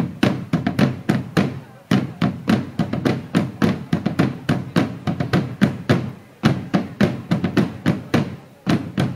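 A corps of field drums beating a march rhythm together, several strokes a second, with brief breaks about two seconds in and again past six seconds.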